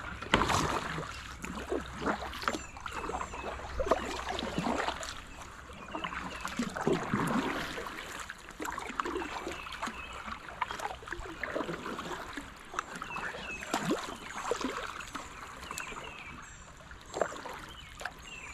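Kayak paddling: a double-bladed paddle dipping into and pulling through river water, with splashes and drips, in an uneven stroke about every second.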